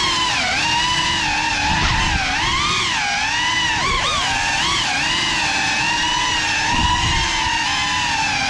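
FPV quadcopter's motors and propellers whining, the pitch rising and falling constantly with the throttle, over a gusty low rumble.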